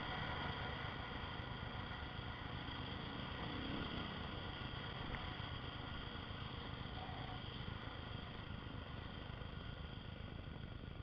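Dual-sport motorcycle engine running steadily while riding a dirt road, mixed with wind and road rumble, as picked up by a helmet-mounted camera; it eases off a little toward the end.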